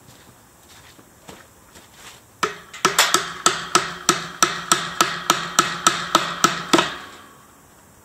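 Hammer blows in a quick, even run of about fifteen strikes, roughly three a second, each with a short ring. They start about two and a half seconds in and stop near the end.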